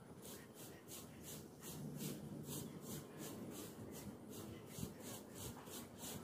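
Faint outdoor ambience: a high, hissing pulse repeating evenly about four times a second over a low background rumble.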